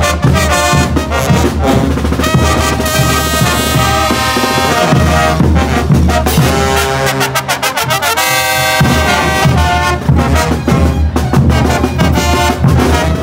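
Bolivian street brass band playing while marching: trumpets, trombones and sousaphones over a bass drum and clashing hand cymbals. About seven seconds in the drums and low brass briefly drop out under held brass notes, then the full band comes back in.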